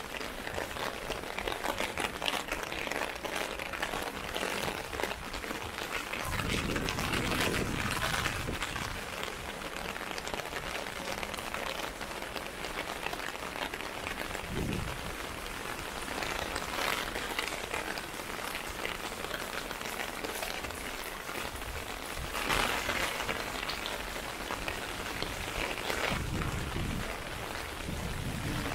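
Steady rain pattering on an umbrella overhead, an even dense hiss of drops. A deeper rumble swells briefly a few times underneath.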